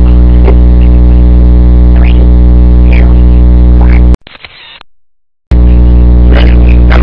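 A loud, steady buzzing drone with a few brief higher sounds over it, cutting out just after four seconds in and starting again about a second later.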